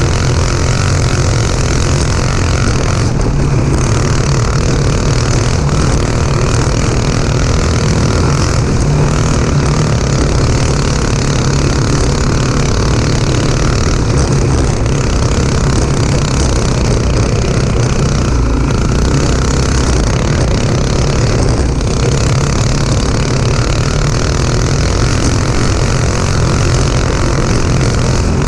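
Rattler go-kart's single-cylinder Honda 5.5 hp engine running at speed, heard from on board over a bumpy dirt trail. It runs loud and steady, easing off briefly a few times.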